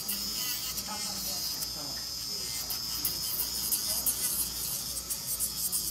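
Electric nail drill running with a steady high whine as its bit grinds an acrylic nail.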